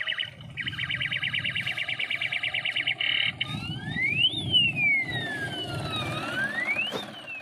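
Electronic siren: a fast warbling tone for about two and a half seconds, then slow wails that rise and fall, over a low engine rumble.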